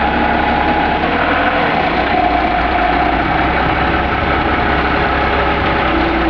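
Toyota forklift engine running steadily, with a steady tone above the rumble that shifts in pitch now and then.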